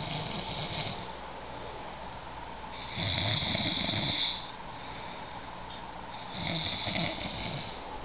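Slow, regular snoring. One snore trails off in the first second, then two more come about three seconds apart, each a low rumbling breath with a hissing edge.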